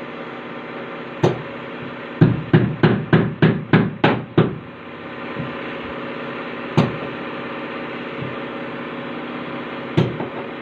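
Steady machine hum under sharp hammer-like knocks: one knock, then a quick run of about eight at roughly three a second, then two more single knocks spread apart.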